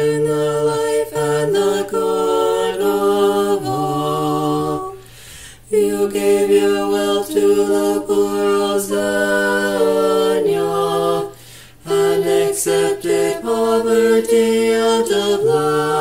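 Small a cappella choir singing an Orthodox liturgical hymn in harmony, voices holding long chord tones, with two short breath pauses about a third and about two-thirds of the way through.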